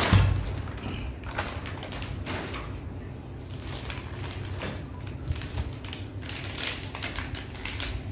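Packaging being opened and handled: irregular rustling with scattered taps and knocks, and a low thud right at the start.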